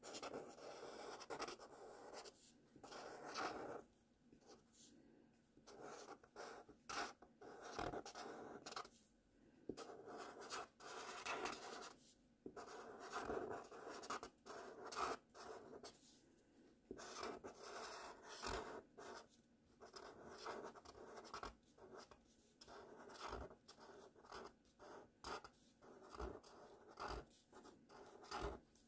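Felt-tip marker scratching over a sheet as cursive letters are written, in short irregular strokes with brief pauses between letters and words.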